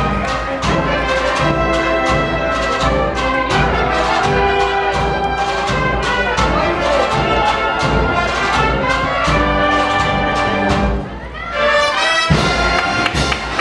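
A Spanish agrupación musical, a processional band of cornets, brass and drums, playing a slow processional march with a steady drum beat. The band drops away briefly about eleven seconds in, then comes back in.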